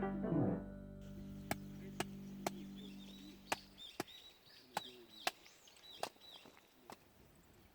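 Background music fading out, then a series of sharp, short taps at irregular intervals, about nine in all, with faint bird chirps between them. A low hum stops about four seconds in.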